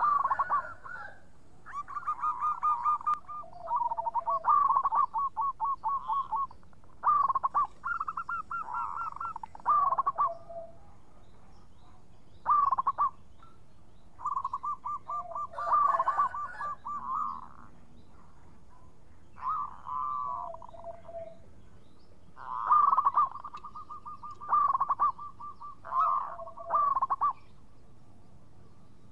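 Zebra dove (perkutut) singing its cooing song: repeated phrases of rapid coos, several of them ending on a lower note, with short pauses between phrases.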